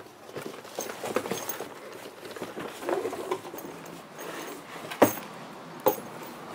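Rustling and scraping of a hard-shell fishing rod bag being lifted out of a cardboard box, with a sharp knock about five seconds in and another just under a second later.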